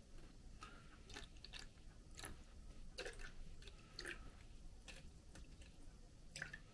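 Near silence broken by about a dozen faint, scattered clicks and light taps: small handling noises of plastic jelly moulds being filled and set down.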